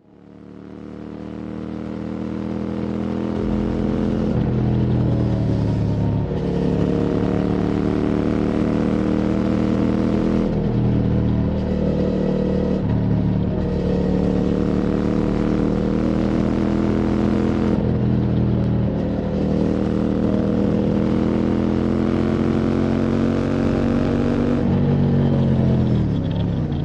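QJ Motor SVT650X's parallel-twin engine through an Arrow Racetech slip-on exhaust, riding under way and fading in over the first few seconds. The throttle is closed briefly several times, as for gear changes, and the engine note falls near the end as the bike slows.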